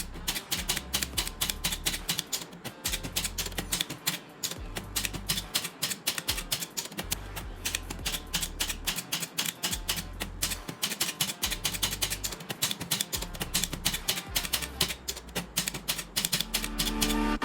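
Mechanical typewriter keys clacking in rapid, continuous typing, over background music with a low bass line.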